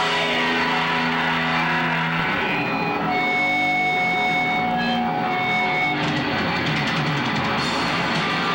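A hardcore punk band playing live: loud distorted electric guitar, with long held ringing tones through the middle before the band carries on.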